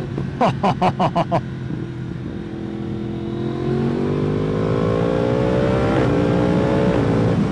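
2016 Yamaha R1's 1000cc cross-plane inline-four, breathing through a decat link pipe and Akrapovic silencer, with a quick string of six sharp, loud pops about half a second in. The engine then pulls hard, its pitch rising, with quick-shifted upshifts dropping the revs around six and seven seconds in.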